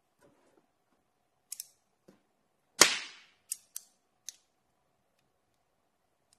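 Magnetic rod segments and 17 mm steel balls clicking together as the structure is handled and built up: a handful of sharp metallic clicks, the loudest a snap about three seconds in that rings briefly.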